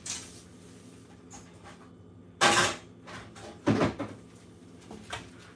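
A low kitchen cabinet being opened and a metal sheet pan taken out: one loud clatter about two and a half seconds in, a shorter knock about a second later, and a few light clicks.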